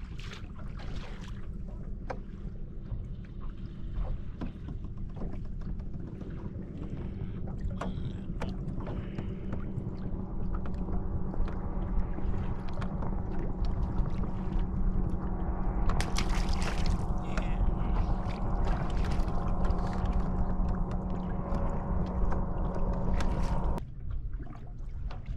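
Electric trolling motor running with a steady whine that grows louder partway through and cuts off suddenly near the end, over wind and water noise.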